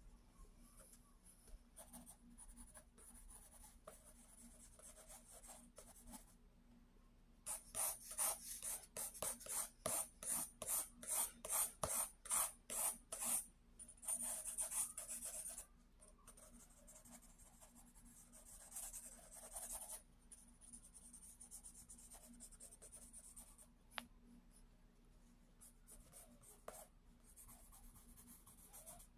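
Pencil scratching on sketchbook paper: light strokes at first, then a run of quick back-and-forth strokes, about three a second, starting about a quarter of the way in, followed by one longer drawn-out stroke and then lighter, sparser strokes. A single sharp tick comes near the end.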